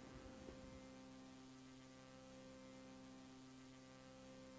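Near silence with a faint steady electrical hum and light hiss.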